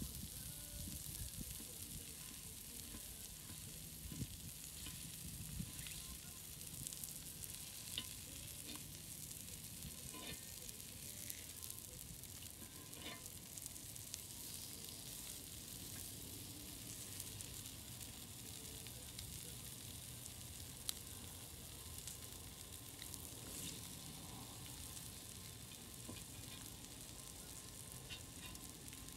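Slices of meat sizzling steadily on a hot flat griddle, with a few light clicks and scrapes of the cooking utensils as the slices are turned.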